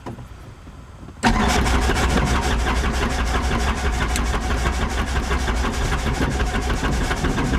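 A helicopter's starter cuts in about a second in and cranks the engine steadily, with a fast even ticking over a low hum. The start is not catching: the engine is not lighting off on a weak battery.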